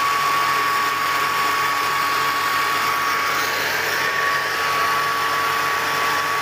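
Electric stand mixer running at a steady speed, its wire balloon whisk beating whipping cream in the bowl. The motor gives a constant whine over a steady whirring hiss.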